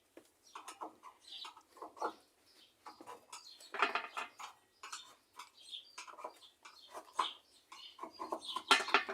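Chickens clucking with short, irregular calls, loudest about four seconds in and near the end.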